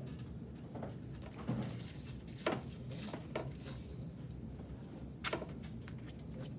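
Athletic tape being pulled off the roll and torn while an ankle is wrapped: a few short, sharp tearing sounds, the clearest about two and a half and five seconds in, with softer handling rustles between.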